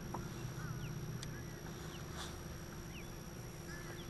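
Open-water ambience: a low steady hum with short, faint bird calls scattered through it.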